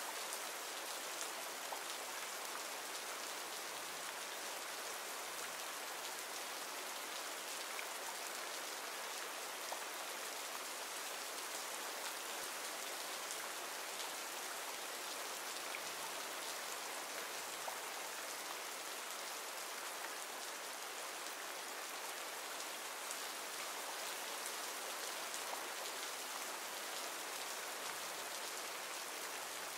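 Steady rain ambience: an even hiss of rainfall with scattered faint drop ticks, from a stock rain-sound recording laid over the scene.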